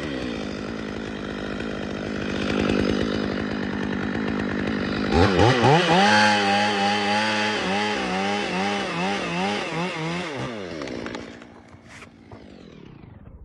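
Two-stroke chainsaw engine running, opened up to high revs about five seconds in with its pitch wavering up and down as it cuts into wood, then dropping back to idle near the end.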